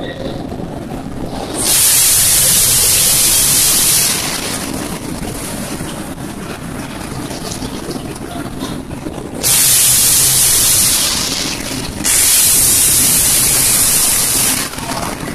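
Inside a running dishwasher: water spraying in three long, loud hissing surges, each lasting two to three seconds, over a steady low running sound of the machine.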